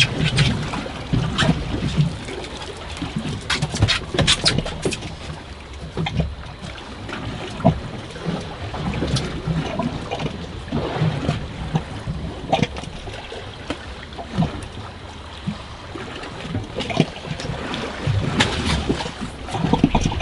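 Sea water splashing and slapping against a small fishing boat's hull, with irregular knocks and clatter on board.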